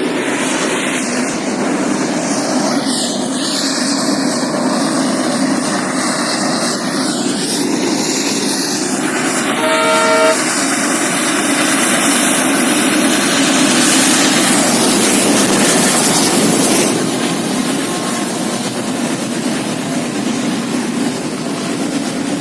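Freight train passing close by: a steady loud rumble and rattle of wagons on the rails. The locomotive's horn sounds one short blast about ten seconds in.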